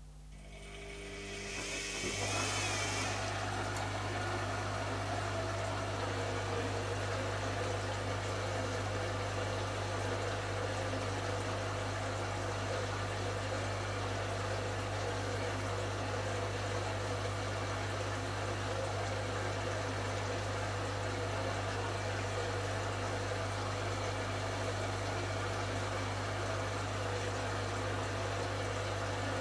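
Zanussi ZKN7120L washing machine starting up and then running steadily, with a constant low hum under a wash of mechanical and water noise. It comes in over about two seconds with a brief hiss, then holds steady.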